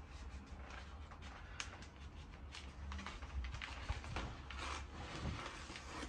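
Aluminium foil tape being laid by hand along the seams of foil-faced insulation boards: its paper backing peeled away and the tape rubbed down, giving faint rustling and scattered small crackles.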